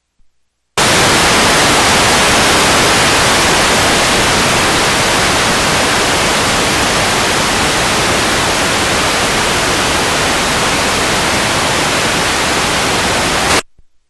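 Loud, even static hiss from a blank, unrecorded stretch of videotape played back. It switches on abruptly under a second in and cuts off suddenly just before the end.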